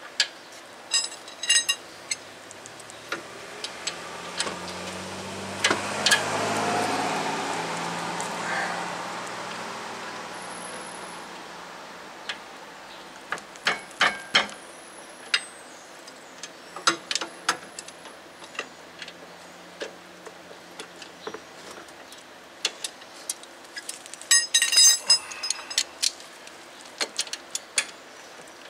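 Wrench and hand tools clicking and clinking on steel as the 17 mm brake caliper bracket bolts are run in and tightened, with scattered sharp ticks and a few ringing metallic taps, clustered near the start and again about 24 to 26 seconds in. A passing vehicle swells and fades about 4 to 10 seconds in.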